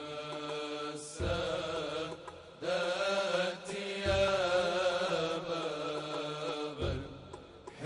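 Male voice singing an Arabic religious nasheed in long, ornamented melismatic phrases over a steady low drone. Deep thumps come about every three seconds.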